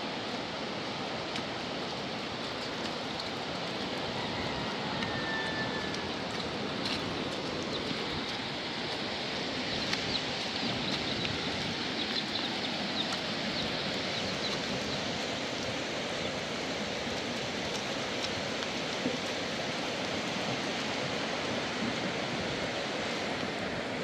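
Steady rushing noise of a storm, with a few faint high chirps around the middle.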